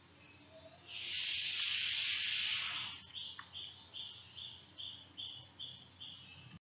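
A hiss lasting about two seconds, then a steady run of short, high chirps, about three a second, typical of a bird calling repeatedly in the background. The sound cuts off abruptly near the end.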